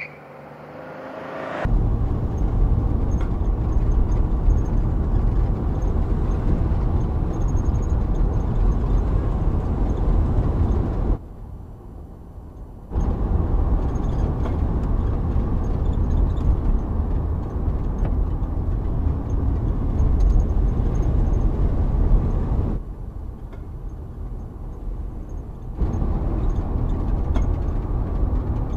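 Steady car engine and road rumble from moving vehicles, heavy in the low end, starting with a short rising engine note. The rumble drops away for a couple of seconds about eleven seconds in and eases off again later.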